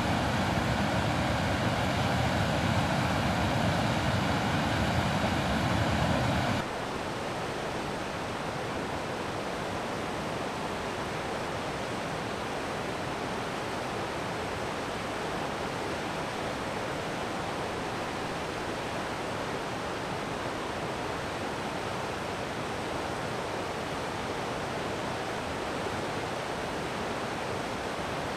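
Steady rush of river rapids. It is louder and fuller for about the first six seconds, then drops suddenly to a softer, even rush.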